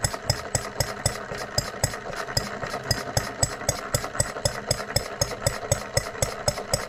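Model hot-bulb-style engine running steadily on its bench, firing with a quick, even beat.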